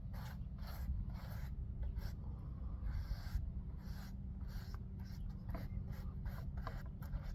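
Scratchy rubbing strokes, about two a second, as glue is worked over a paper patch on a speaker cone, over a steady low hum.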